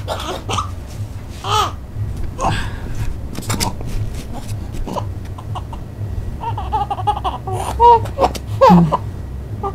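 A three-month-old baby crying in a string of short cries, the loudest coming near the end.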